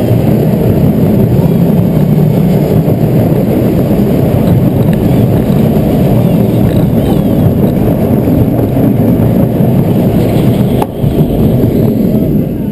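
Zierer steel family roller coaster train running on its track, heard from on board: a steady loud rumble of the wheels on the rails. A single sharp clack comes near the end as the train runs back into the station and the noise begins to die down.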